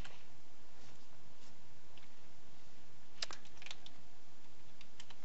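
A few sharp clicks of a computer keyboard and mouse, a cluster about three seconds in and two more near the end, over a steady faint hiss.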